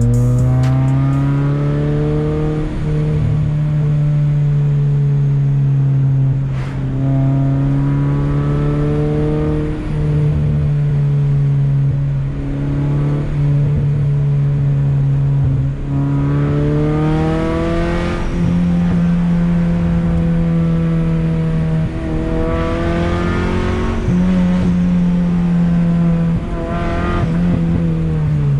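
Honda Accord wagon's F22B1 four-cylinder engine under hard driving, held at high revs with brief drops in pitch and level every few seconds as the gears change, climbing again after each shift.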